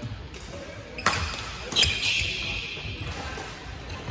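Badminton rally: sharp cracks of rackets hitting the shuttlecock, two about a second in and just under two seconds in, echoing briefly in the hall, with dull thuds of footsteps on the court.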